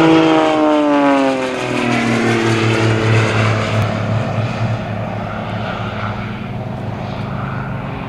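Extra 300 aerobatic plane's piston engine and propeller passing overhead: the engine note falls in pitch over the first two seconds as it goes by, then settles into a steady drone that slowly fades.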